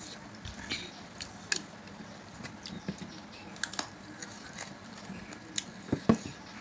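Eating by hand: scattered soft clicks and smacks of chewing and of fingers working rice on ceramic plates, with two louder knocks near the end.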